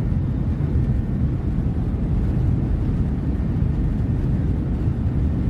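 Inside the cabin of a Boeing 737-800 on its takeoff run: the CFM56 jet engines at takeoff thrust and the runway rumble make a loud, steady low roar.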